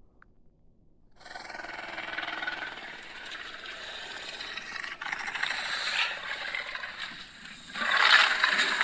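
Creature sound effects for a Carnotaurus dinosaur: a rough, rasping growl that starts about a second in and goes on, then breaks off briefly and comes back louder near the end.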